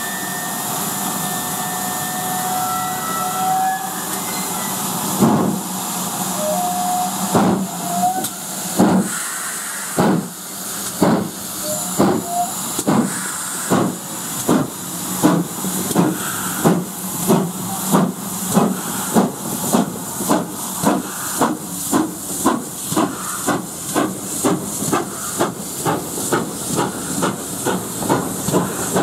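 GWR Hall class 4-6-0 steam locomotive 'Raveningham Hall' starting its train: steam hisses for the first five seconds or so, then slow, heavy exhaust chuffs begin. The chuffs quicken steadily as it gathers speed, reaching nearly two a second by the end.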